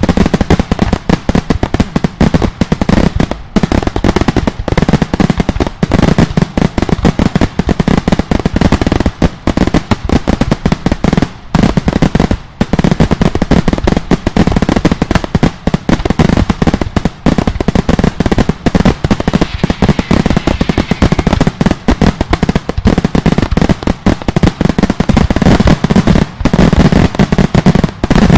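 Daylight fireworks: a dense, continuous barrage of very loud firework bangs and firecracker reports, many per second, with no let-up.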